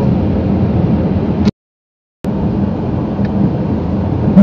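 Steady rumble of road and wind noise heard from inside a moving car, dropping out to complete silence for under a second about one and a half seconds in, then resuming.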